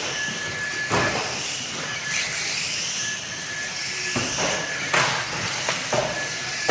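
A pack of small radio-controlled saloon cars racing on carpet: a steady hiss and whine of motors and tyres, with sharp knocks about a second in and several more in the second half as the cars hit the barriers and each other.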